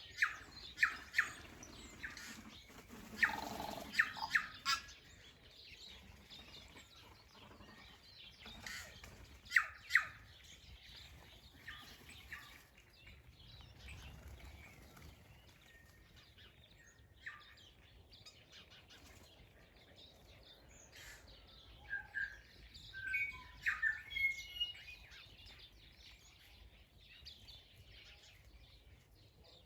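Wild songbirds chirping and calling in short bursts. There are louder clusters of sharp chirps in the first few seconds and again around ten seconds in, and a run of clear whistled notes near the end.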